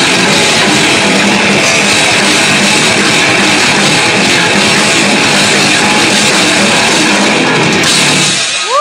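Rock band playing live, loud, with guitars and a drum kit; the song stops near the end.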